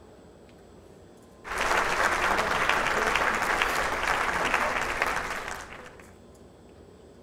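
Audience applauding. The clapping starts abruptly about a second and a half in and dies away after about four seconds.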